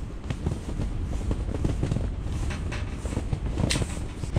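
Strong wind buffeting an ice-fishing shelter: a steady low rumble with a few light clicks and taps scattered through it.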